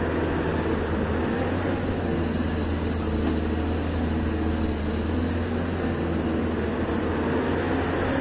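Caterpillar 320D excavator's six-cylinder diesel engine running steadily under hydraulic load as the machine swings its loaded bucket out to dump soil and swings back, a constant deep hum throughout.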